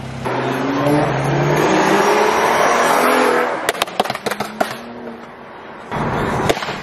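BMW engine and exhaust accelerating hard, heard from inside the car, the engine note rising for about three seconds. As the revs drop it gives a string of sharp pops and crackles, and there is a loud rush of noise near the end.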